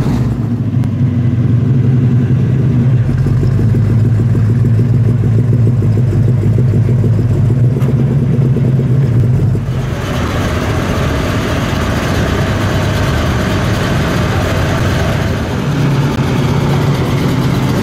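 Plymouth Road Runner's V8 idling with a steady, evenly pulsing low exhaust rumble. About ten seconds in, the sound switches to a second V8, a Pontiac Firebird, running with a noisier, more open exhaust note.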